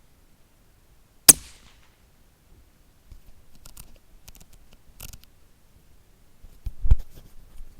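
A single shot from a .223 Remington rifle (Howa 1500), one sharp crack a little over a second in with a short ringing tail. It is followed by faint clicks and rustles of handling and a dull thump near the end.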